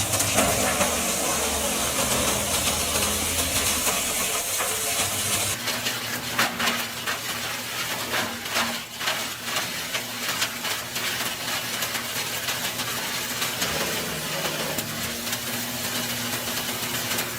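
Wood chipper running and shredding wood: a steady hissing rush of machine noise with many sharp cracks and snaps, thickest between about six and eleven seconds in.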